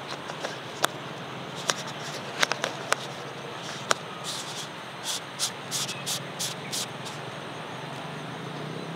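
Handling noise from a phone or camera being adjusted by hand: a scatter of sharp clicks and taps, then a run of short hissy scrapes about four seconds in. Under it runs a steady outdoor background noise.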